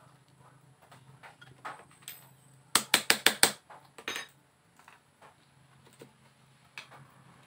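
Metal clinks and taps from handling a motorcycle stator and a screwdriver on the bench, with a quick run of about six sharp taps about three seconds in, over a steady low hum.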